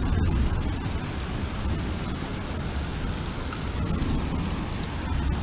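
Storm rain pouring steadily, with a low rumble underneath.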